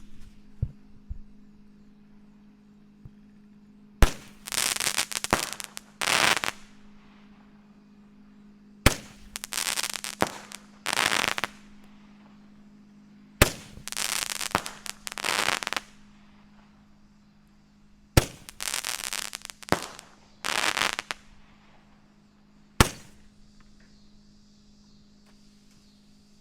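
Black Cat 'Gatling Barrel' Roman candle firing five shots about four and a half seconds apart. Each shot is a sharp pop, and after the first four comes about two seconds of hissing in two stretches.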